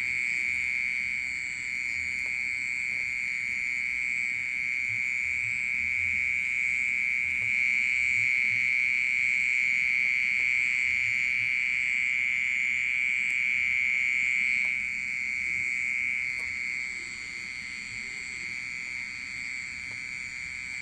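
Continuous, unbroken high-pitched ringing drone with no chirp rhythm, like a water pump, from an unseen creature among potted plants at night. It drops somewhat in level about fifteen seconds in.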